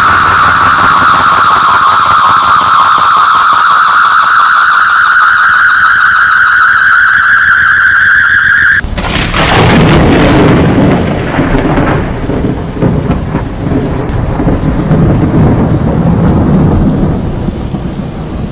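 A loud, sustained alarm-like electronic tone with a fast flutter, rising slowly in pitch, cuts off abruptly about nine seconds in. A thunderclap follows, then rolling thunder with heavy rain.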